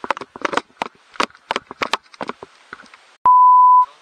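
A loud, steady, single-pitch censor bleep, about half a second long, that starts and stops abruptly about three seconds in. Before it comes a run of irregular clattering knocks and rustles.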